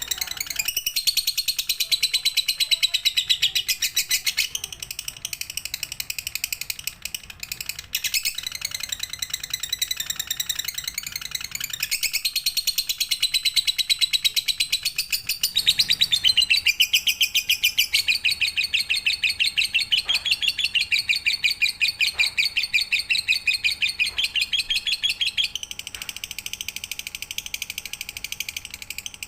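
Lovebird singing a long, unbroken, very fast chattering trill (the 'ngekek' song), shifting pitch about halfway through and getting quieter near the end.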